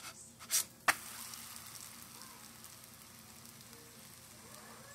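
Pancake sizzling in a hot frying pan as it is flipped: a brief scrape and a sharp knock about a second in, then a steady frying sizzle.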